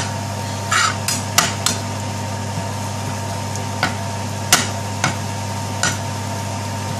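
A metal spoon scraping and clacking against a nonstick frying pan while fried onions and ground spices are stirred, with about eight irregular knocks. A steady low hum runs underneath.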